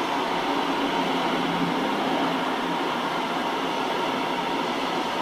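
Freight train of container and tank-container flat wagons passing at speed: a steady rolling noise of wheels on rails, with a faint steady whine above it.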